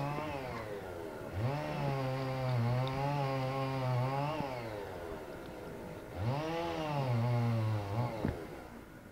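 A small engine revving in three spells: it runs on from before and dies away about half a second in, comes back for about three seconds, then runs again for about two seconds near the end, rising in pitch at each start and falling as it drops off.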